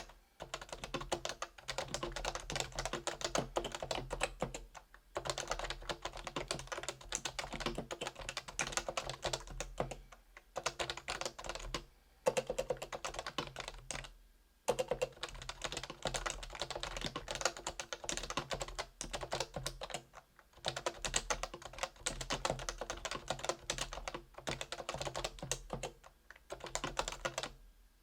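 REALFORCE R2 keyboard with stock 45g Topre electrostatic capacitive switches being typed on quickly and continuously, a dense run of soft key strokes broken by brief pauses every few seconds.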